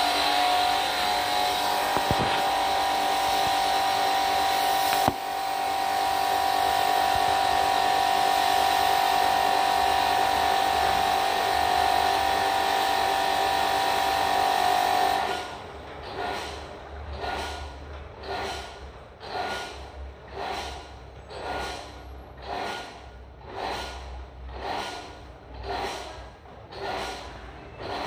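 Steady running of a pressure-washer pump jetting water onto a cassette air conditioner's evaporator, with a strong held tone over a spray hiss. About halfway through it gives way to a quieter rhythmic swishing, roughly one stroke every 0.8 s.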